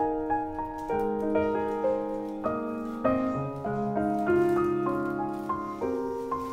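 Background piano music: a single piano playing a melody over held chords, new notes struck every fraction of a second.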